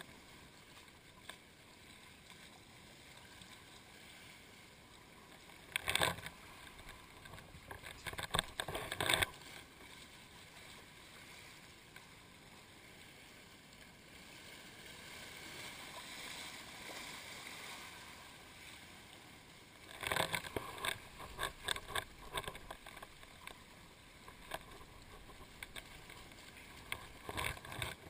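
Sea water sloshing and splashing against rocks close to the microphone: a steady low wash with loud bursts of splashing about six seconds in, again from eight to nine seconds, around twenty to twenty-three seconds, and near the end.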